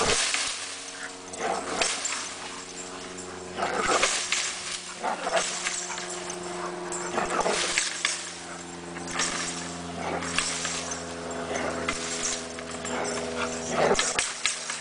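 American pit bull terrier working a springpole: repeated sharp knocks and scuffs every second or two as it leaps, grips and swings on the rope, over a steady whine.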